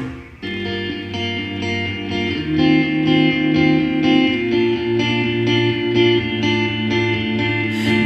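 Music played through a Sony SA-D100 4.1 home speaker system (subwoofer and four satellite speakers): after a brief dip, a softer passage of long held chords starts about half a second in, its notes changing every couple of seconds.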